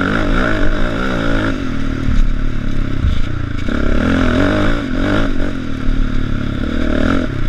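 Sport quad bike's engine running hard under load, its pitch rising and falling again and again as the throttle is worked, with some clattering from the machine over rough dirt.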